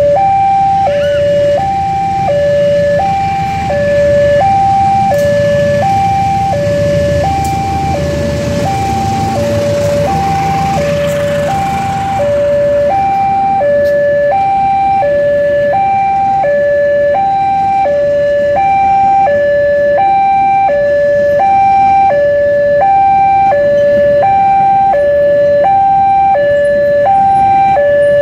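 Railroad level-crossing warning alarm sounding continuously, an electronic tone alternating between a high and a low note, each held a little under a second. Beneath it a passing train rumbles, loudest in the first half and easing off about halfway through.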